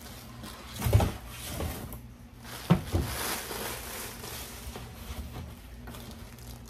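Plastic packaging rustling and crinkling as it is handled, with a dull thump about a second in and a sharper knock a little before three seconds.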